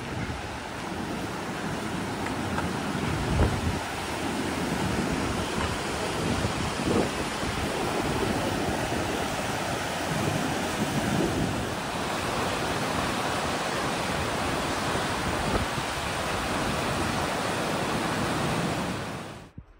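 The Merced River rushing over granite at the top of Nevada Fall: a steady whitewater rush, with a few low gusts of wind on the microphone. It cuts off suddenly near the end.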